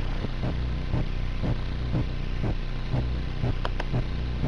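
Engine running steadily with a low hum and a regular knock about twice a second, and two sharp clicks a little before the end.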